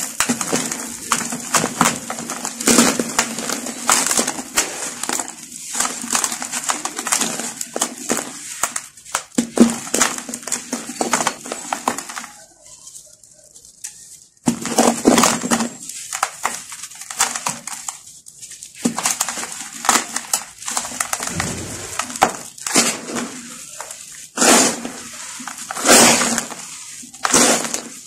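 Dry sand-cement chunks crushed and crumbled by hand in a plastic tub: repeated bursts of gritty crunching and crackling as pieces break and powder and grit trickle down. The crunching stops briefly about halfway through, then starts again.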